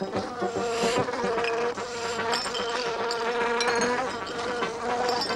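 Steady, insect-like buzzing drone in the film's soundtrack, a single held tone with scattered fine clicks beneath it.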